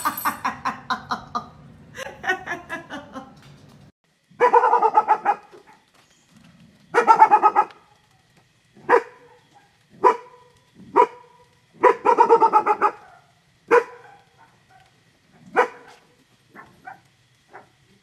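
Dog barking in very rapid-fire bursts, the staccato 'sprinkler bark': dense runs about four and seven seconds in and again around twelve seconds, single sharp barks in between, the last few faint. Before the barking starts, a quick run of sharp clicks.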